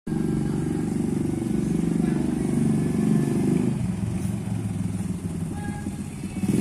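Small ATV engine running steadily, its note easing off a little past halfway through.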